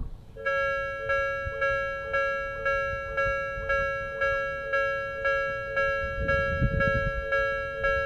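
Japanese railway crossing's electronic warning bell ringing, an even clanging at about two strikes a second, starting about half a second in.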